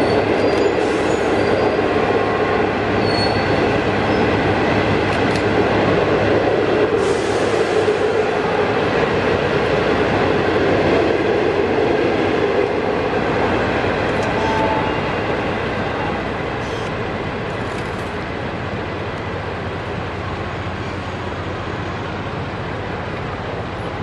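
Passenger train coaches rolling past on the track with a steady rumble of wheels on rail, easing off about fifteen seconds in as the end of the train goes by.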